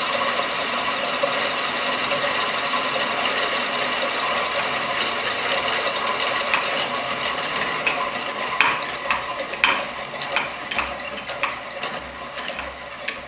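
Electric motor of a closed-loop disc spinner running with a steady whine, then slowing toward a stop as its speed is set to zero. From about six seconds in, sharp clicks come roughly once or twice a second as the brakes kick in, and the running sound fades.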